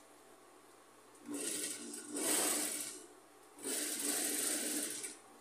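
Industrial sewing machine stitching in three short start-stop runs beginning about a second in, the middle run the loudest.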